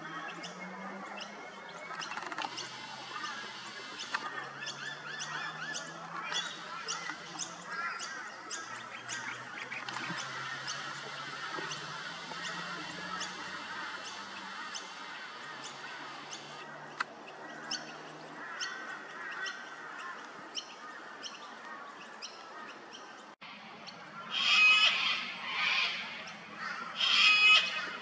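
Background of small birds chirping, then two loud, harsh screeches from a sulphur-crested cockatoo near the end, each lasting a second or two.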